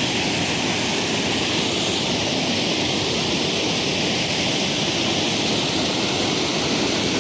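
Water rushing over a waterfall, a steady, loud, unbroken rush.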